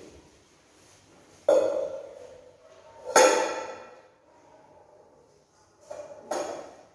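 Metal inner pot of an electric rice cooker clanking and ringing as a small child handles it, lifting it out and setting it down on a tiled floor: four knocks, the loudest about three seconds in, and the last two close together near the end.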